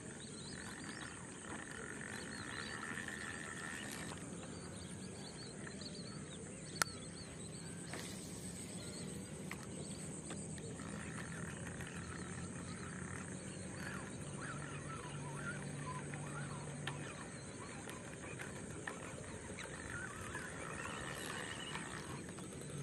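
Wetland wildlife ambience of birds and frogs calling over a steady high hum, with one sharp click about seven seconds in.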